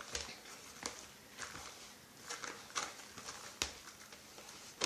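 Gloved hand tossing and mixing a ground roasted rice salad in a large plastic bowl: soft, irregular rustles and pats, roughly one or two a second, with a few louder ones.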